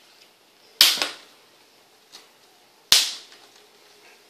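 Plastic snap clips of an Acer Aspire 5250 laptop's screen bezel popping loose as the bezel is pried off by hand. There are two loud sharp snaps, one about a second in and one about three seconds in, with a fainter click between them.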